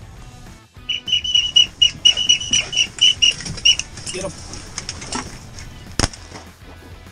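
A duck whistle call blown close by in a rapid run of short, high whistled notes, about four a second, for roughly three seconds. About six seconds in, a single shotgun shot.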